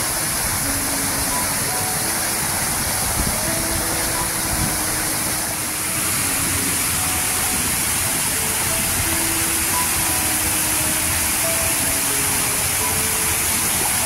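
Waterfall's steady rush of falling water, with a slow melody of soft, held notes from background music laid over it.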